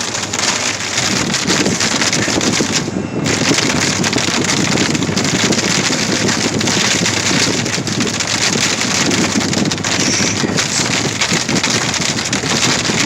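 Hail and heavy rain pelting a car's roof and windshield, heard from inside the cabin: a dense, steady clatter of small impacts.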